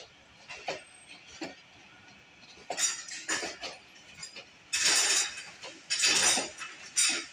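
Pakistan Railways passenger coaches rolling slowly past, their wheels clacking and clanking over rail joints and points. Single light clicks at first give way, about halfway in, to longer, louder metallic clanks.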